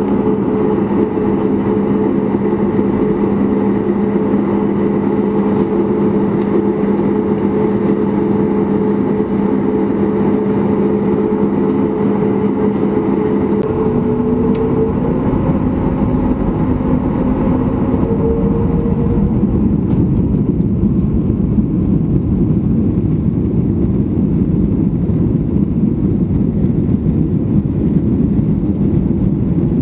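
Boeing 737 MAX 8's CFM LEAP-1B turbofan engines heard from inside the cabin: a steady hum with two clear tones, which step up in pitch about halfway through as the engines spool up to takeoff thrust. In the last third it becomes an even rumble as the jet accelerates down the runway.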